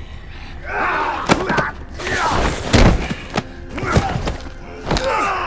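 Fight sound effects: about half a dozen hard punch and body-hit thumps, the loudest about three seconds in, with men's grunts and pained shouts between the blows.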